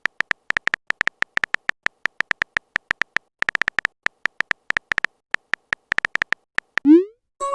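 Rapid, irregular run of short high electronic beeps, all at one pitch, several a second with small pauses between groups. About seven seconds in, a quick rising synthesized sweep.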